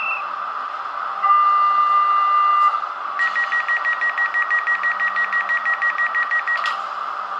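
Door-closing warning signal of an ÖBB 4020 S-Bahn sound project, played by an ESU LokSound 5 decoder through the H0 model's small loudspeaker: one long beep about a second in, then rapid beeping for about three and a half seconds, over a steady hiss.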